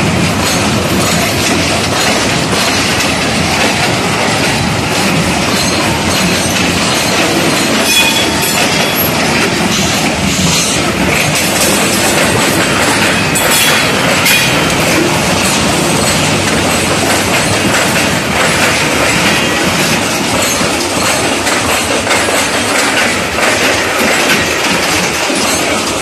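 Freight train of covered hopper wagons rolling past, steel wheels clattering over the rail diamond crossing, with a few brief high wheel squeals.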